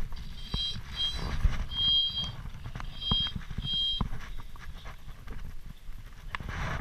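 Fly reel's click drag buzzing in short high-pitched bursts, about five of them, as line is pulled from or wound onto the reel while a salmon is played on the fly rod. The buzzing stops about four seconds in.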